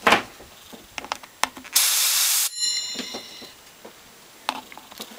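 A short burst of compressed air, about two seconds in and lasting under a second, blown into an opened hard drive to spin its platter like a Tesla turbine. As the air cuts off, a high whine of several tones fades over about a second. A sharp knock at the very start and a few light handling clicks.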